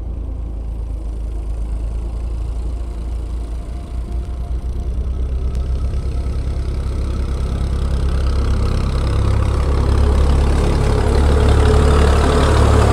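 Diesel farm tractor towing a trailer, its engine running steadily and growing louder as it approaches and comes close.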